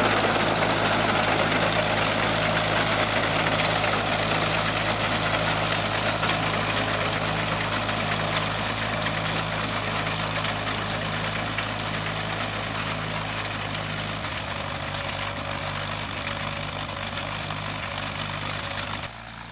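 Tractor engine running steadily while it pulls a working reaper-binder through standing grain. The sound grows gradually fainter as the outfit moves away, then drops suddenly near the end.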